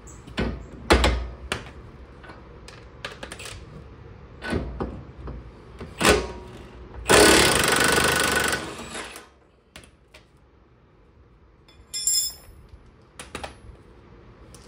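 Steel wrench clanking and knocking against a suspension bolt on a car's rear control arm. Around the middle comes a loud, harsh mechanical rattle lasting about two seconds, and near the end a brief ringing metallic clatter of tools.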